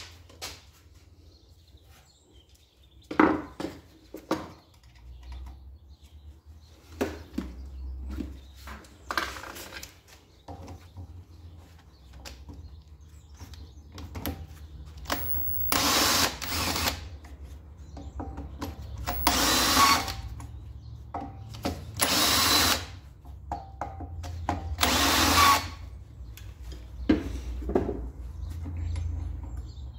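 Cordless drill-driver running in four short bursts of about a second each, backing out screws to take the cover off an air compressor. Knocks and clicks come in between, earlier and near the end.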